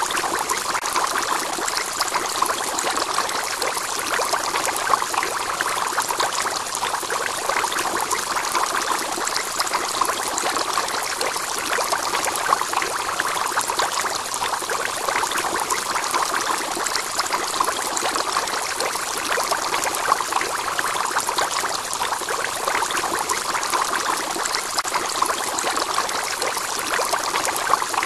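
Steady pouring and trickling of aquarium water, the external filter's return flow running into the tank.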